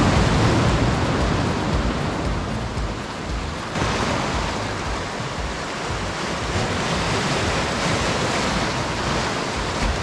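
Sea surf washing and foaming over rocks on a rocky shore, a steady hiss of breaking water. In the first few seconds wind rumbles on the microphone; about four seconds in the sound changes suddenly to a closer, hissier wash of surf.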